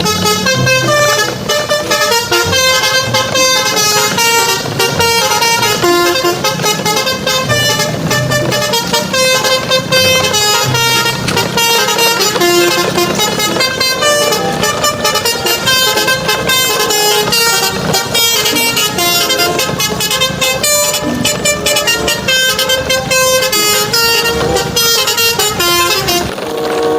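Truck horns honking over vehicle engine noise, loud and continuous, with many pitched tones that change rapidly.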